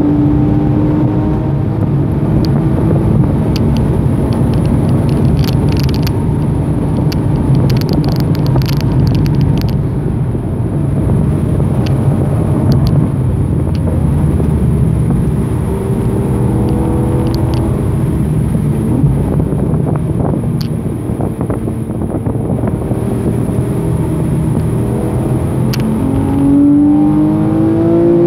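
Porsche 991.1 Carrera's 3.4-litre flat-six heard from inside the cabin at track speed, over steady tyre and road noise. The engine note climbs under acceleration near the end.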